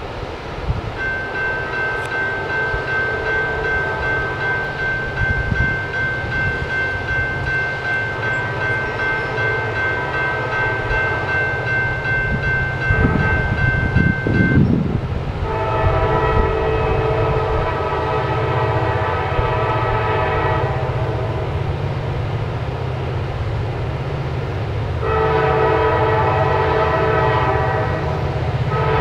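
Diesel freight locomotive's air horn sounding two long blasts as the train approaches, the first about halfway through and the second near the end, over a steady low rumble. Before the blasts, a thin steady high tone is heard.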